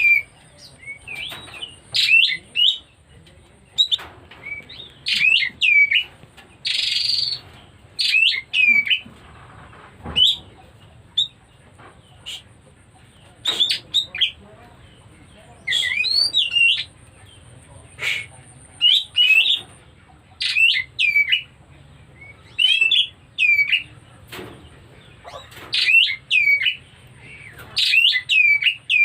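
Oriental magpie-robin (kacer) calling with short, loud chirps that swoop up and down in pitch, in pairs or small clusters about every second or two; calling that the keeper presents as a sign of the bird coming into breeding condition.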